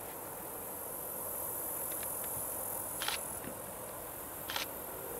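Steady high-pitched insect buzzing from the grass, with a few short chirps about three and four and a half seconds in, over a faint low rumble from a diesel freight train still far off down the line.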